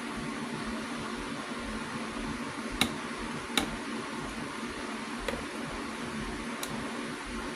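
Steady low hum and hiss of room noise, broken by a few sharp clicks: two louder ones just under three seconds in and a moment later, and two fainter ones near the end.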